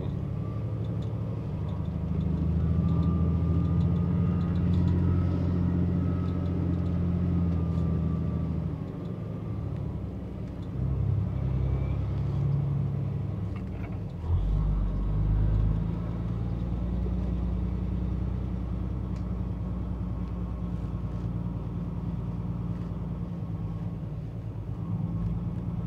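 Semi-truck's diesel engine heard from inside the cab as the truck rolls slowly ahead. The engine note changes a few times, most clearly about fourteen seconds in where it drops lower, and a faint wavering whine sits above it in the first few seconds.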